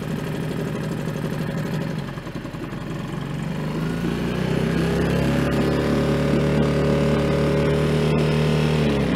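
Tohatsu Sail Pro 6 four-stroke outboard motor running just after a cold start, its first run after months laid up. The engine speed dips and wavers briefly about two seconds in, then rises and holds steady at a higher, louder speed.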